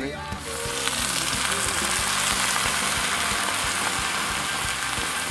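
Beer poured into a hot frying pan of softened onions, hissing and sizzling in the oil. The sizzle starts about half a second in and stays steady.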